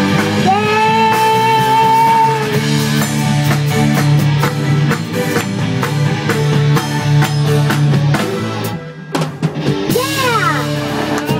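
Rock band playing live with a young girl singing lead: electric guitar, drum kit and a child's voice, with a long held sung note near the start. About nine seconds in the guitar and bass drop out, leaving a few sliding vocal notes and scattered drum hits.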